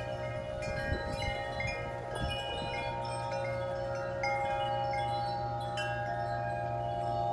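Wind chimes rung hard and continuously by strong gusts. Many struck notes overlap and ring on at once.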